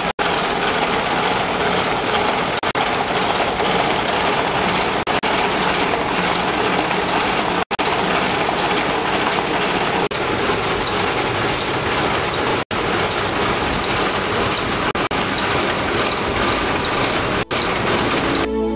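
Reel-to-pack continuous-stationery printing and converting machine running at speed: a loud, steady mechanical noise, broken by brief gaps every two to three seconds.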